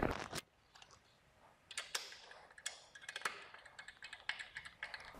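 Scattered small metallic clicks and ticks of beam-clamp screws being hand-tightened on a metal 4-inch square electrical box, after a brief handling noise at the start.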